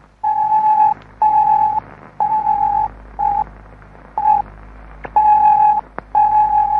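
A single steady radio tone, keyed on and off in seven beeps about a second apart, mostly long with two short ones in the middle, over a faint low hum.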